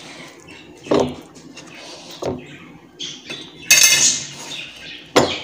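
Marinated chicken strips being tossed by hand in flour in a wooden bowl. Three short knocks against the bowls and a brief hissing rustle a little past the middle.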